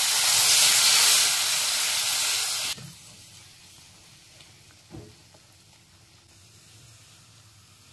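Water poured into ground moong dal roasted in hot ghee in a kadhai hisses and sizzles loudly, throwing up steam. The hiss stops abruptly about three seconds in, leaving faint stirring with a wooden spatula and a couple of light knocks.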